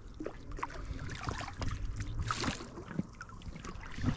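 Water lapping and ticking against the hull of a small inflatable boat moving slowly on a lake, over a faint steady low hum, with a brief hiss about two and a half seconds in.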